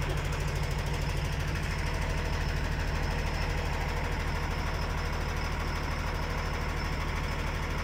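An engine running steadily at idle with a fast, even pulse.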